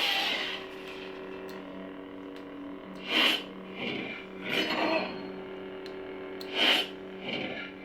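Lightsaber sound font (Kyberphonic's Indara font) playing through a saber's speaker: a steady electric hum, with four swelling swing whooshes as the blade is moved, the first about three seconds in.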